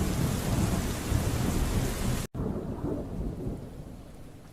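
Thunderstorm: rain hissing over a low rumble of thunder. A little over two seconds in the sound cuts out for an instant; after that the rain is much fainter and the rumble dies away.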